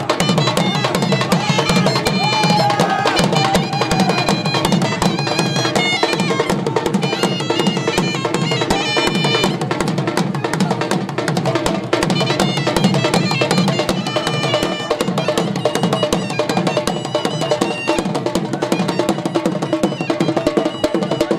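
Live dhol and surnai: the surnai's reedy melody moves in held, stepping notes over the dhol's fast, steady drumbeat. This is Pashtun music for the Khattak dance.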